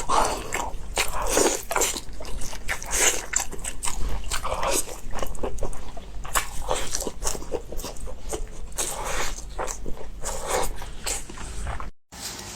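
Close-miked eating: a person chewing and biting food with wet mouth sounds and crunches in quick, irregular succession. It cuts off abruptly near the end.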